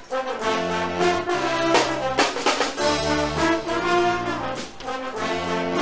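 Guggenmusik band playing live: loud, sustained brass chords from trumpets, trombones and sousaphones over bass drum and cymbals, with a run of cymbal and drum strokes about two seconds in.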